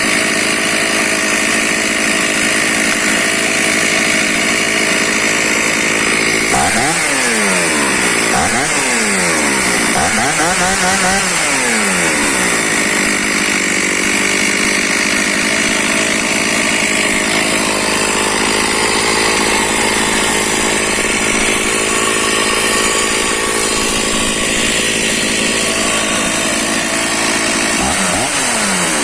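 Stihl MS 460 chainsaw's two-stroke engine running loud and steady, its revs dropping and climbing back several times about a third of the way in and once more near the end as the throttle is let off and opened again.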